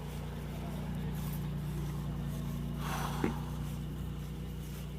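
Car engine idling, a steady low hum heard from inside the cabin, with a short click about three seconds in.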